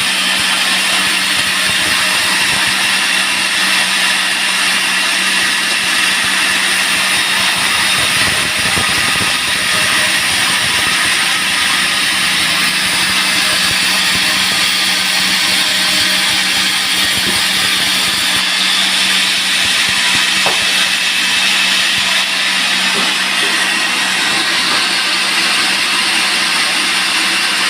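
Band sawmill running steadily and sawing a teak log: an even, loud mechanical noise with a steady low hum under it, unchanging throughout.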